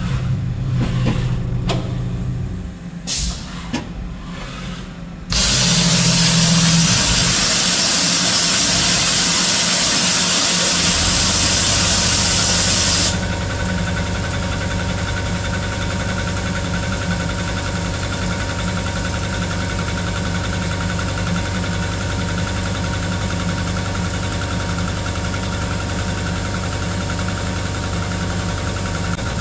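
Milling machine fly-cutting an 11-thousandths facing cut across a cold-rolled 1018 steel plate, with the spindle turning at 680 RPM: a steady machine running sound with a few fixed tones. About five seconds in, a loud even hiss starts and cuts off suddenly some eight seconds later.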